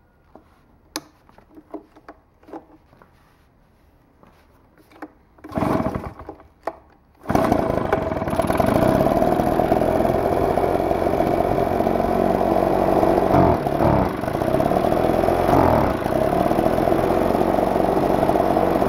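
Husqvarna 130BT backpack blower's two-stroke engine being pull-started. After a few light handling clicks, a loud pull on the recoil starter comes about five seconds in. The engine catches on a second, short pull and runs steadily and loudly, its note dipping briefly twice. The owner thinks its replacement carburetor is running lean, and the mixture has not yet been adjusted.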